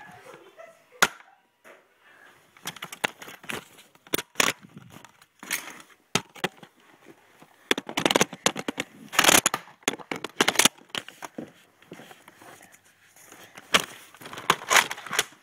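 Scattered sharp clicks and knocks with short bursts of clatter, from a Nerf blaster fight and the scuffle around it. They are thickest about eight to eleven seconds in and pick up again near the end.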